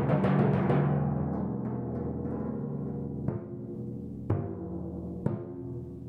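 A set of four timpani played with mallets: a quick flurry of strokes in the first second, then the drums' pitched tones ring on and fade, with single strokes about once a second in the second half.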